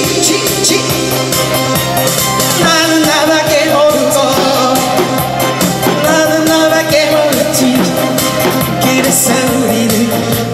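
A woman singing a Korean trot song into a microphone over a loud amplified backing track with a steady beat; her sung phrases stand out about two and a half seconds in and again around six seconds.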